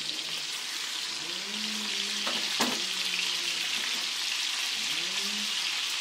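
Cut-up bacon frying in hot bacon grease in a cast iron skillet, with a steady sizzle. There is a single sharp knock about two and a half seconds in.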